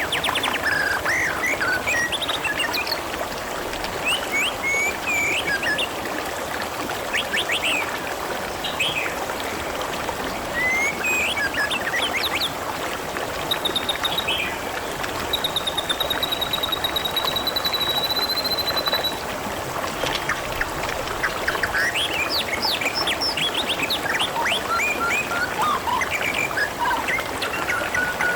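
Steady trickling, babbling water with small birds chirping and whistling over it. A fast trill runs through the middle, and a single held whistle comes near the end.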